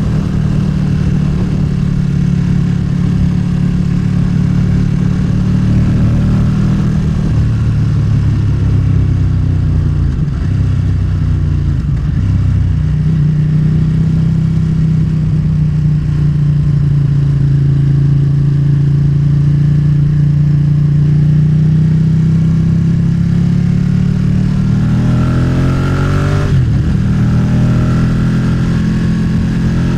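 Motorcycle engine running at steady revs while riding. The revs dip briefly twice about ten to twelve seconds in. Near the end the engine accelerates, with one gear change and the revs climbing again.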